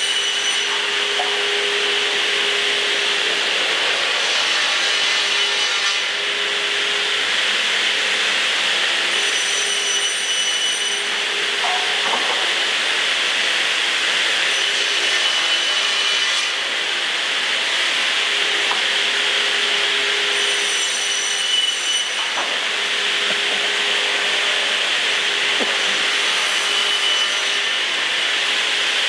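Pass-through cross-cut trimming saw running, its circular saw blades cutting lumber ends as boards pass through: a steady machine hum and hiss, with a high whine coming in about every five to six seconds as each cut is made.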